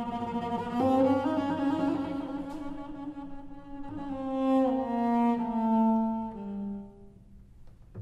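Solo cello played with the bow: sustained notes, some sounded two at once, swelling about a second in, then a phrase stepping down in pitch that fades away about seven seconds in.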